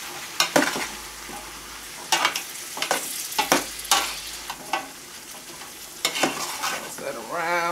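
Green beans sautéing in garlic bacon butter sauce in a large aluminium pot, with a steady sizzle. A utensil tossing them clicks and scrapes against the pot at irregular moments.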